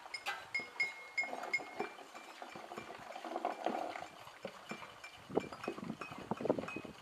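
Improvised water-and-vessel percussion: many small clinks and taps on glass bottles and other containers, some ringing briefly, with water sloshing; a flurry of louder knocks and splashes in the last few seconds.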